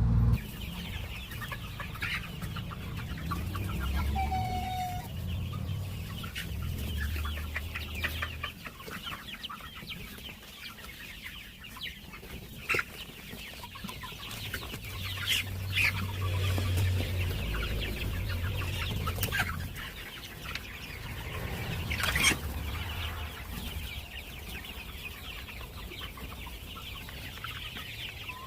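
A flock of young Kaveri chickens clucking with scattered short calls, one longer held call about four seconds in, and a low rumble underneath at times.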